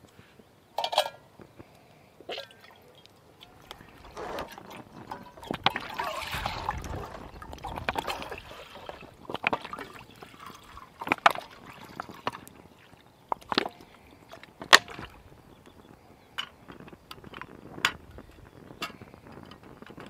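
Water poured from a plastic bottle into a steel canteen cup, running and splashing for several seconds in the first half. Sharp clicks and knocks come before and after, the loudest about three-quarters of the way through.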